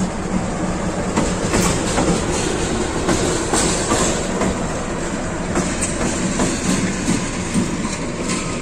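CC 206 diesel-electric locomotive moving past at close range with its engine running and its wheels clacking irregularly over the rail joints.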